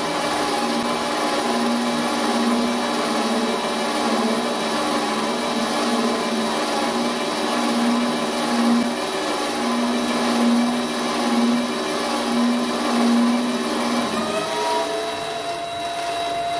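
Vevor mini lathe's brushed DC motor and spindle running at about 1300 rpm while taking a six-thousandths turning cut on round stock: a steady motor whine over a hum that pulses about once a second. About 14 seconds in, the hum drops away and a higher, steadier tone takes over. The owner hears a vibration noise that he puts down to the bed and an unlocked carriage.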